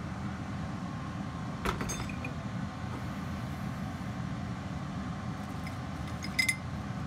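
Steady hum of a laminar flow hood's blower, with glass test tubes clinking as they are lifted out of a pressure cooker: one clink a little under two seconds in and a quick double clink near the end.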